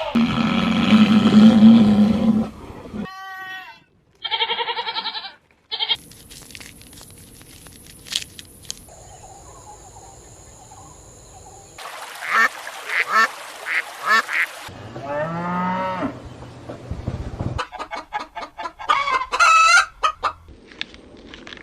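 A run of short, separate animal-call clips joined by abrupt cuts, several of them honking calls of waterfowl.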